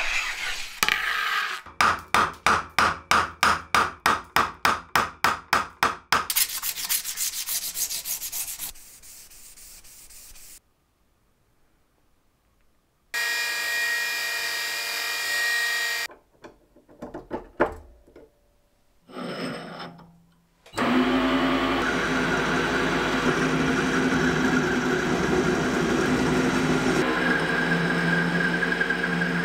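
Rhythmic hand scraping or rubbing strokes, about four a second, on a welding electrode, then denser rubbing. A bench polishing machine then runs briefly with a rod held to its wheel. For the last third, a metal lathe runs steadily, turning a steel rod.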